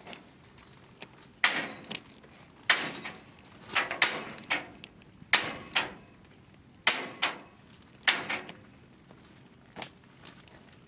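Hammer striking the steel pipe frame of a greenhouse, about ten sharp blows at irregular intervals, some in quick pairs, each with a short metallic ring.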